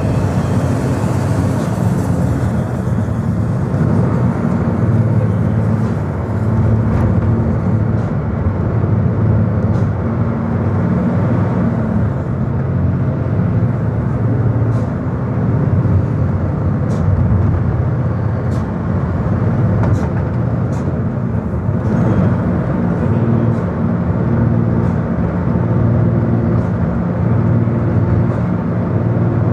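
Vehicle engine and road noise heard from inside the cabin while driving on a winding road: a steady low drone whose pitch shifts a couple of times, with occasional light clicks or rattles.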